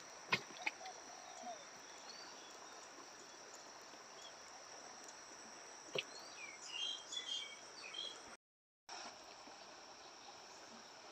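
Faint riverside ambience: a steady high-pitched insect drone with scattered short bird chirps, a cluster of bird calls about seven seconds in, and a few sharp clicks. The sound cuts out for a moment about eight and a half seconds in.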